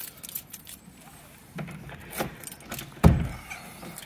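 Keys jangling on a keyring and clicking as one is worked into the lock of a wooden door, with a heavy clunk about three seconds in.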